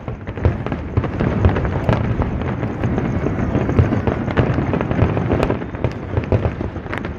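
Fireworks display: a dense, continuous barrage of aerial shells bursting and crackling, with a few sharper bangs standing out above it.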